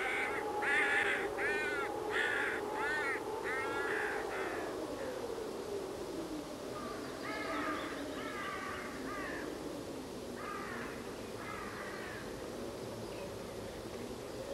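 Crows cawing repeatedly: a quick run of about seven caws in the first few seconds, then more scattered groups of caws. Underneath runs a low sustained tone that slowly glides up and down in pitch.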